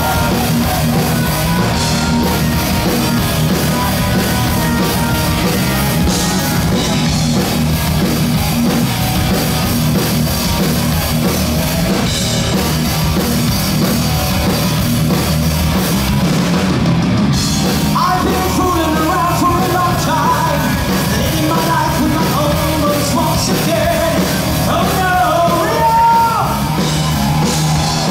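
Heavy metal band playing live: electric guitars, drums and keyboards, with a man's singing voice coming in about eighteen seconds in.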